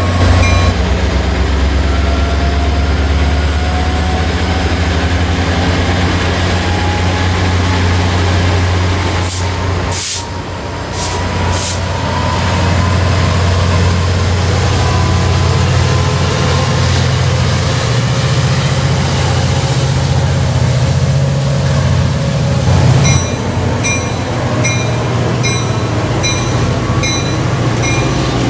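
Caltrain diesel locomotives in a meet at a station, F40PH #908 drawing in on the near track: a steady deep diesel engine rumble throughout. Several short air hisses come about ten seconds in, and a bell rings with even strokes at the very start and again over the last few seconds.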